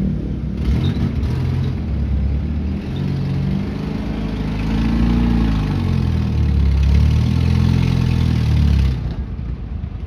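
A car engine running and being revved: its pitch rises and falls a couple of times, loudest in the second half, then drops back near the end as the car takes up a tow strap.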